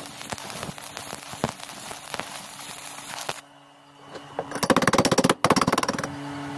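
Stick-welding arc crackling and sizzling as a flux-coated electrode lays a fillet weld on steel plate, for about three seconds. After a short lull, a burst of rapid, sharp clicking follows for about a second and a half.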